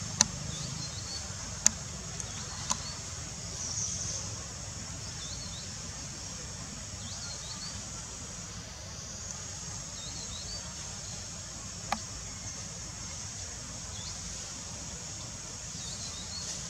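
Forest ambience: a steady high insect drone with short chirps over it. A few sharp clicks stand out, the loudest about a quarter of a second in.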